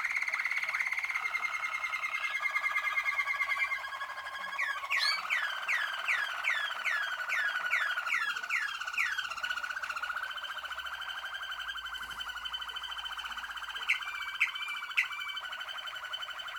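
A team of Malinois (Waterslager) song canaries singing together, with long rolled trills held at two pitches at once and, a few seconds in, a run of quick falling whistled notes about two a second.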